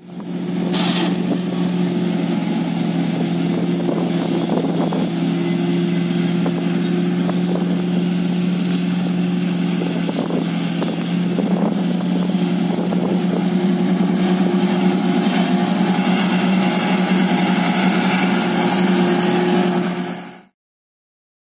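Farm diesel engine running at a steady, even speed, a constant low drone. It fades in at the start and stops shortly before the end.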